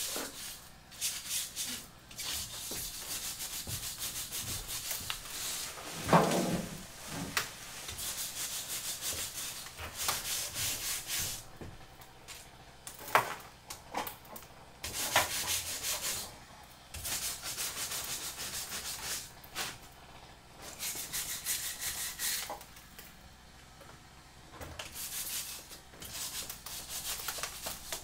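Hand scraper rasping over a papered plaster wall in quick repeated strokes, in runs of a few seconds with short pauses. A few sharper knocks come in between, the loudest about six seconds in.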